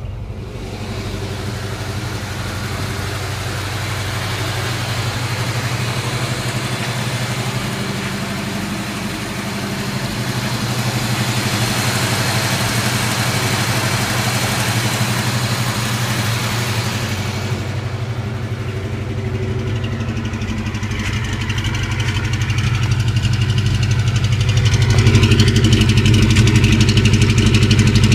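1988 Ford Mustang GT's 5.0 V8 idling high and rough, getting louder about 25 seconds in. The idle sounds like it still has a misfire, which the owner puts down to moisture and corrosion in the distributor.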